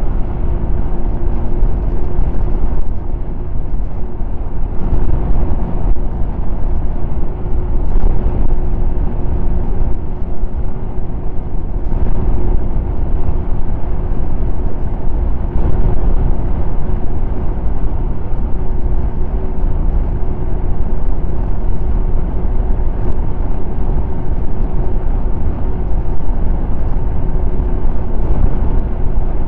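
Snowmobile engine running steadily at cruising speed, its note holding one pitch over a heavy, even rumble, with a few faint knocks.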